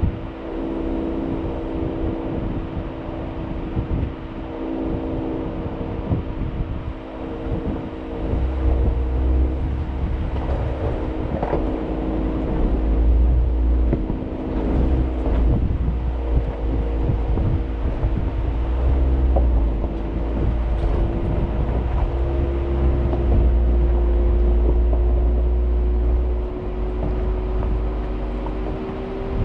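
Jeep engine running steadily at low revs as it crawls up a rocky trail, its pitch rising slightly near the end. Low wind rumble on the microphone and scattered knocks and crunches of rock under the tyres.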